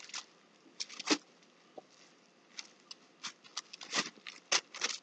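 Plastic garbage bag wrapped around a canvas, crinkling in short, scattered rustles as it is handled.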